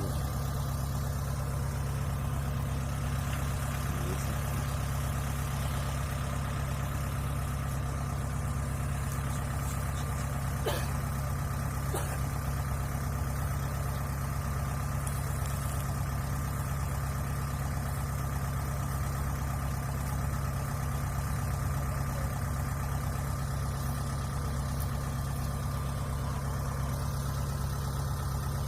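Kubota DC-70 Plus combine harvester's diesel engine running steadily at an even speed, a low drone with a thin steady whine above it.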